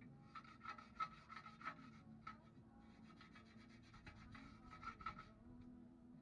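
Faint, irregular scraping and rubbing strokes over a steady low hum.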